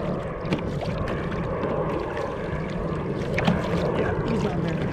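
Steady wind rumble on the microphone and water lapping against a kayak hull, with scattered small clicks.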